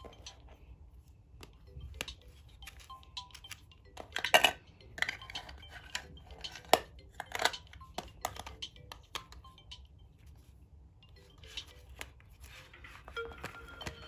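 Smartphones being handled and stacked on a wooden table: irregular clicks and clacks of the phone bodies knocking against each other and the tabletop, loudest about four and seven seconds in. Near the end a phone's alarm melody starts faintly.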